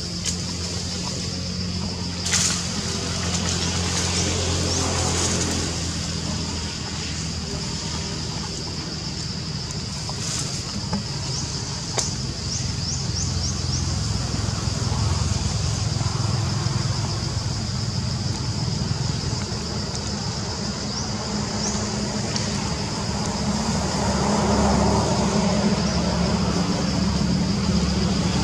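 Outdoor ambience: a steady high-pitched drone with a low rumble underneath, and a few faint short chirps.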